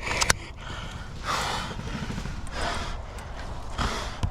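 A person breathing hard close to the microphone: three breaths about a second or more apart, after a few sharp clicks at the very start.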